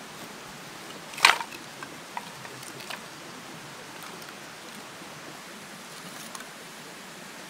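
An armful of split firewood set down on the grass with one short wooden clatter about a second in, followed by a few lighter knocks as sticks are laid under the tub, over a steady background hiss.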